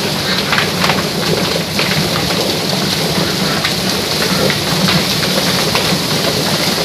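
Chicken defeathering machine running: its spinning drum of rubber fingers churns wet birds under a hose spray, a steady splashing rush over a low hum, with scattered knocks as the birds tumble.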